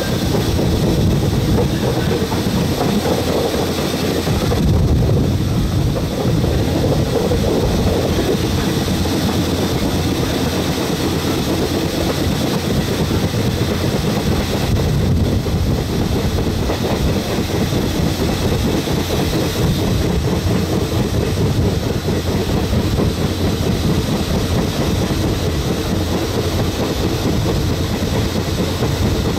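Passenger coaches of a moving train running along the track: a steady rumble of wheels on rails, heard from an open carriage window.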